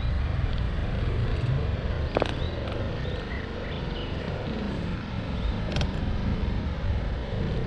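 Wind rumbling on the microphone and road noise while riding a bicycle outdoors, with a few short high chirps and a sharp click about two seconds in.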